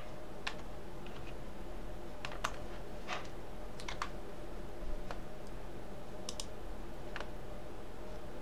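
Irregular clicks of a computer mouse and keyboard, about a dozen scattered single and double clicks over a faint steady background hum.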